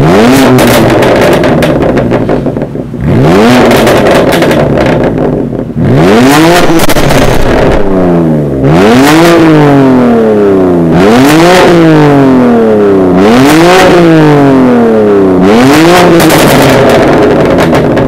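BMW M4 Competition F82's twin-turbo straight-six, breathing through an Akrapovic titanium slip-on exhaust and Evolution link pipes with the exhaust valves open, revved repeatedly at standstill. It goes through seven sharp rises and falls in engine speed, about every two to three seconds.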